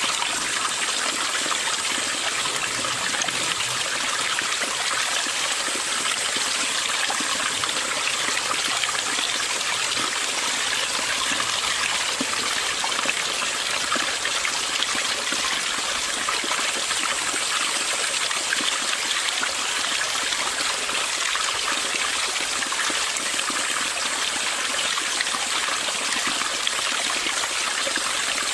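Mountain valley stream flowing, a steady, even rush of water with no breaks.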